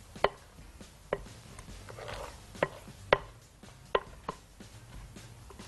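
A spatula knocking and scraping against a glass mixing bowl as thick sponge-cake batter is poured out onto a parchment-lined baking tray: about six sharp taps at irregular intervals.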